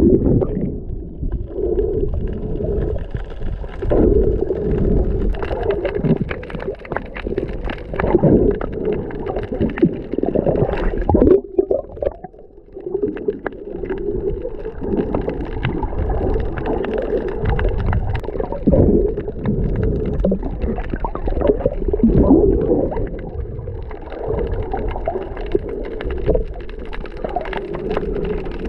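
Muffled underwater noise heard through a camera housing during a breath-hold dive: low rumbling and gurgling of moving water and air bubbles, swelling and fading unevenly, with a short quieter spell about twelve seconds in.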